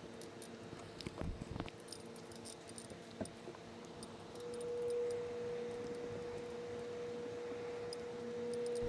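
Faint rubbing of a microfiber towel wiped across an RV's fiberglass front cap, with a few light clicks in the first half. A steady hum runs underneath and grows louder about halfway through.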